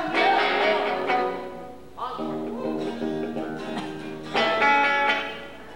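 Electric guitar through a small practice amp and an acoustic guitar playing chords together, with a louder strummed chord about four and a half seconds in.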